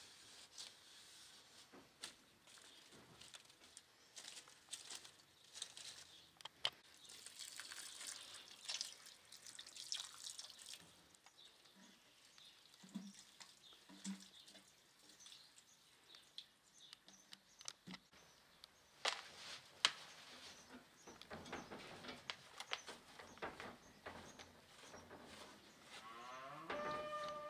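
Faint cleaning sounds: a cloth rubbing over clay flower pots and a mirror, with scattered light knocks and clicks, and water trickling from a plastic watering can into a plant pot midway. Near the end a cow moos once.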